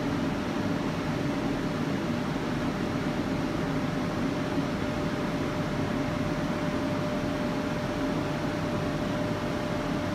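Phoenix commercial dehumidifier running: a steady fan-and-compressor hum with a constant thin whine.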